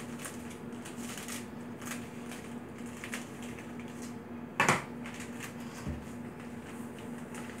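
Kitchen food-prep handling: light clicks and rustles of bowls, utensils and packets being moved, with one louder clatter about four and a half seconds in, over a steady low hum.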